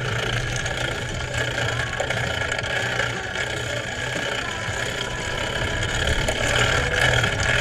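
A small engine on a motorized bicycle running steadily under way: a constant hum that gets slightly louder near the end.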